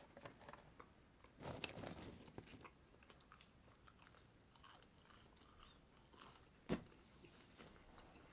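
Close-miked eating sounds, quiet overall: a burger being bitten and chewed, with a short run of chewing noises about a second and a half in. Late on comes one sharp click, the loudest sound.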